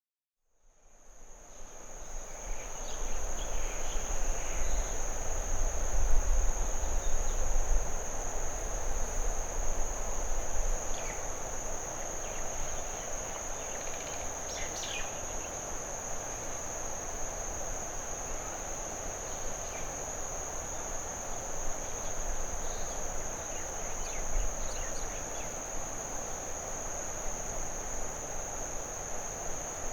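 Nature ambience of an insect chorus: a steady, unbroken high-pitched trill fading in from silence, over a soft hiss and a low rumble that is stronger in the first ten seconds. A few faint short chirps come through now and then.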